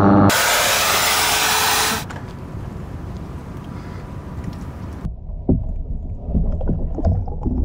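Water in a plastic bucket being stirred and sloshed as a lit bulb is held under, heard partly through a submerged camera. A loud rushing hiss for the first couple of seconds softens, and from about five seconds in the sound turns muffled, with scattered knocks and sloshing.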